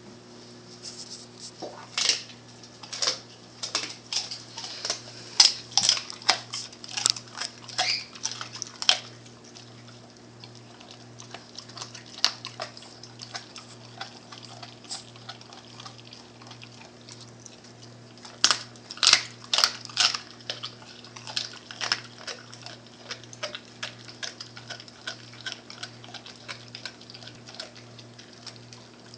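American Staffordshire Terrier chewing and tearing at a whole raw turkey: irregular bursts of wet chewing and smacking, busiest in the first several seconds and again about two-thirds of the way through, quieter in between. A steady low hum runs underneath.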